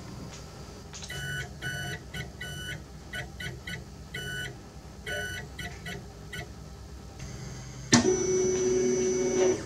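Stepper motors of a Monoprice Select Mini 3D printer whining in short pitched spurts as the print head and bed move. About eight seconds in, a louder steady pitched hum starts abruptly with a click and stops suddenly near the end.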